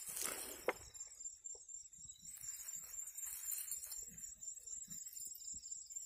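Net mesh and dry grass rustling and crackling as hands work through a catching net, over a steady high chorus of night insects.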